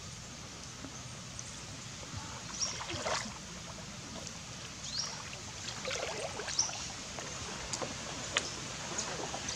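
A bamboo pole dipping and splashing in shallow stream water as a bamboo raft is poled along, in a few separate strokes. A few sharp clicks come near the end.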